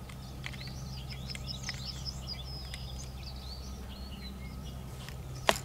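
Small songbirds chirping and singing, many short calls overlapping, over a steady low rumble. A single sharp knock comes near the end.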